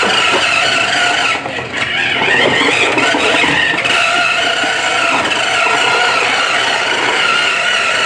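Electric motor and gears of a toy Bratz remote-control convertible whirring steadily as it drives across a wooden floor, easing off briefly about a second and a half in before picking up again.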